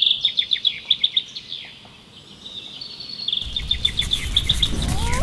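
A songbird sings two quick phrases of rapid repeated chirps. A low rumble swells up under the second phrase.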